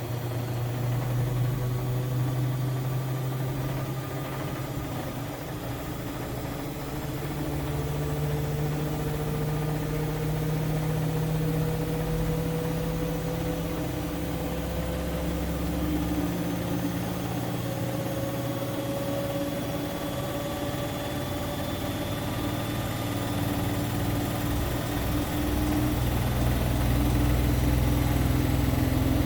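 Siemens Siwamat IQ 716 washing machine running, its motor hum and whine rising slowly in pitch as the drum speeds up.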